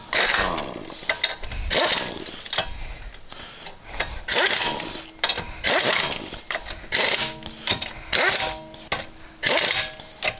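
Air ratchet spinning lug nuts onto the wheel studs in short bursts: about eight hissing, whirring runs, each under a second, with brief pauses between.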